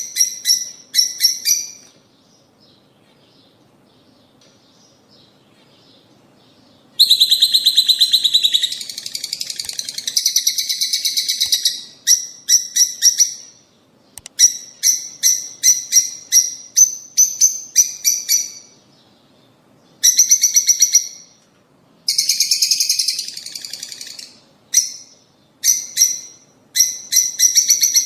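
Lovebirds calling: runs of sharp, high-pitched chirps repeated in quick series, with a stretch of dense, continuous chattering in the middle and a pause of about five seconds near the start.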